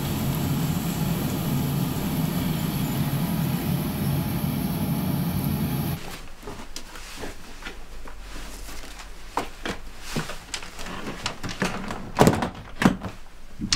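A steady rumbling noise that cuts off suddenly about six seconds in. Then a suitcase is packed: rustling and light knocks of things being handled, and two sharp thuds near the end as its lid is shut.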